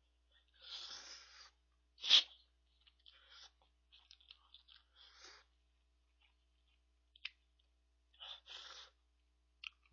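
A person slurping instant ramen noodles close to the microphone, with chewing between: several short slurps, the sharpest and loudest about two seconds in, and another near the end.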